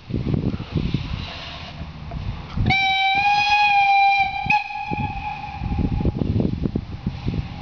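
Steam whistle of the metre-gauge steam locomotive 99 6001-4 giving one long blast of a steady tone as the train departs. It starts sharply about three seconds in, sounds loud for nearly two seconds, then carries on fainter for another second or so. Wind buffets the microphone throughout.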